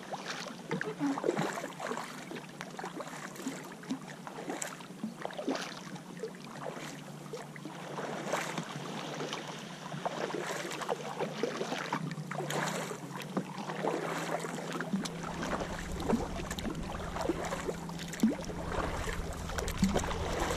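Double-bladed paddles of a tandem kayak dipping into and pulling through calm lake water, with irregular splashes and drips from the blades. A low rumble comes in about three-quarters of the way through.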